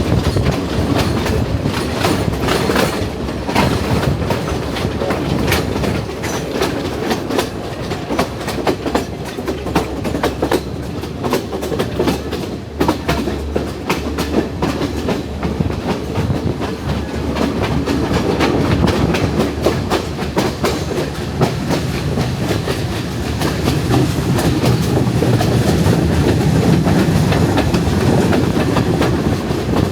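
Passenger train running on the rails, with a steady rumble and a dense, irregular stream of wheel clicks and clacks over the track. The rumble grows somewhat louder near the end.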